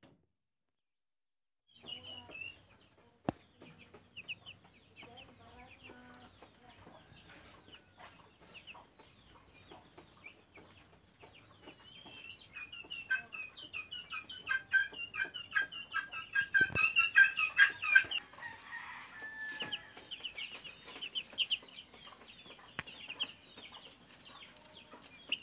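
A flock of broiler chicks about two weeks old peeping: many short, high chirps, sparse at first and growing busier and louder about halfway through, with a single sharp knock just before the chirping eases.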